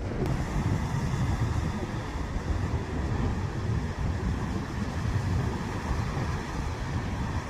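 Ocean surf against a sea cliff, heard as a steady low rumble with wind buffeting the microphone.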